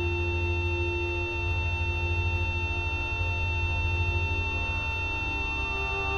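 Ambient drone score: several steady held tones over a low, pulsing hum, with a new mid tone coming in about five seconds in.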